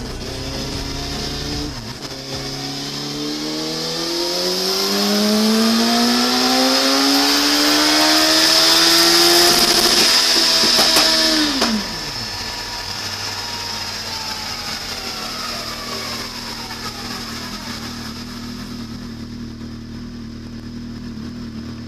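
Turbocharged Suzuki Hayabusa inline-four engine revving steadily higher for about ten seconds as a high hiss builds with it. Just before halfway the throttle snaps shut, the revs fall away quickly, and the engine settles to a steady idle.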